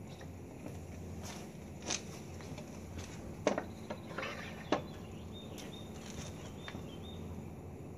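Clinks and knocks as a plastic crate of glass swing-top beer bottles is handled and a post-mounted stand is pushed into it. There is a single clink about two seconds in, then a few sharper knocks with a short rattle between them around the middle, over a low steady background.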